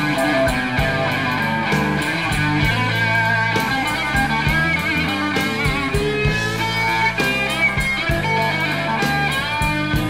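Hard rock music with electric guitar and drums, laid over the footage.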